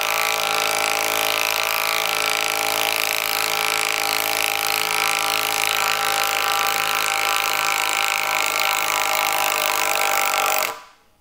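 Milwaukee cordless impact driver hammering steadily in reverse, backing a 1/2-inch lag screw out of a wooden beam through a deep impact socket. It stops suddenly shortly before the end.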